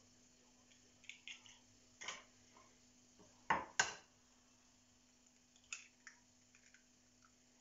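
Eggs being cracked into a mixing bowl: two sharp knocks of shell against the bowl about halfway through, with a few lighter clicks and taps of shell and fingers before and after.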